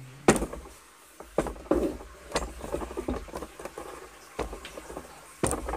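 Footsteps on a tiled floor, with scattered knocks and rustles of handling, about one sharp knock a second.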